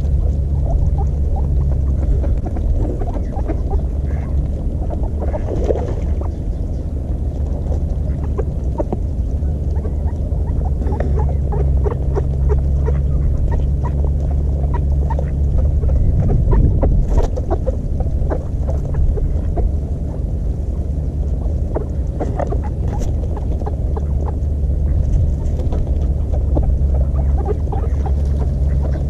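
Waterbirds (ducks, coots and swans) feeding on ice: many scattered short pecking clicks and a few soft duck calls over a steady low rumble.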